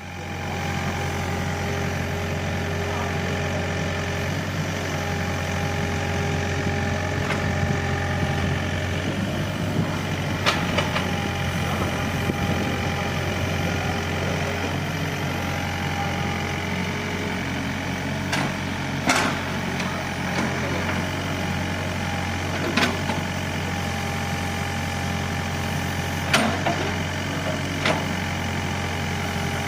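Excavator's diesel engine running steadily with a low hum and a steady whine above it. A few sharp knocks come over it through the second half.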